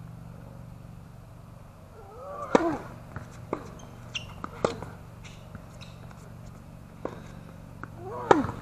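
Tennis rally on a hard court: sharp pops of racket strings hitting the ball, the two loudest (about two and a half seconds in and near the end, the last a forehand) each with a short grunt from the hitter. Fainter pops of the far player's shots and ball bounces fall in between.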